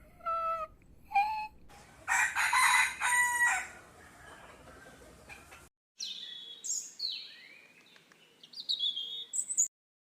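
A rooster crows loudly about two seconds in, after two short high-pitched calls. After a brief gap, a run of high chirps, each falling in pitch, follows.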